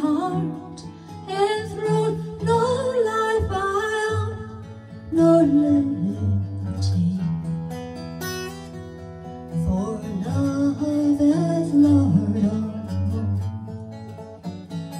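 A slow folk song: an acoustic guitar fingerpicked and strummed, under a woman's singing voice.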